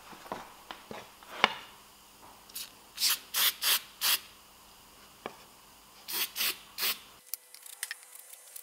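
Aerosol spray paint can spraying in short bursts, four quick hisses about three seconds in and three more about six seconds in. Before them come a few light clicks and one sharp tap.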